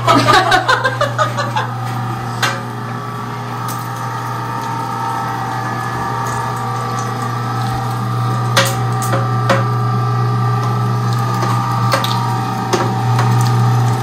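Electric meat grinder running steadily through its first, coarse pass of meat: a continuous motor hum with a few sharp clicks and knocks scattered through it.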